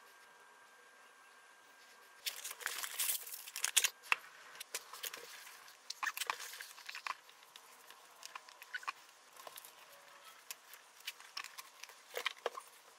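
Light handling noises on a workbench: scattered clicks, taps and paper rustling, from small items being set down and moved on a sheet of wax paper. They start about two seconds in and are busiest over the next two seconds.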